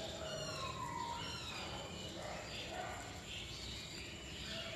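Faint chirping of small birds in the background: short, high chirps scattered through, over quiet room tone.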